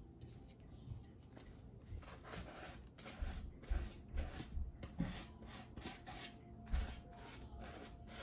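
Paintbrush scrubbing and rustling over the crumpled paper of a papier-mâché volcano, irregular short strokes, with a few soft low knocks from handling.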